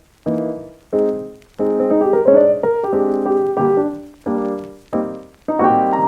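Background piano music: a series of chords, each struck and left to ring and fade before the next, about one or two a second.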